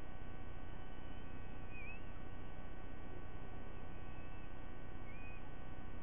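Steady electrical hum and hiss from a nest-cam microphone. Several faint short bird chirps sound over it, a few of them sliding up or down in pitch.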